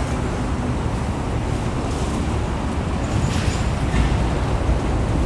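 Steady vehicle running noise: a low rumble with a hiss over it, with no single event standing out.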